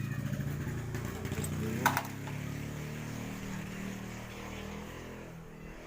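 A motor vehicle engine running, strongest at first and slowly fading, with one sharp click a little under two seconds in.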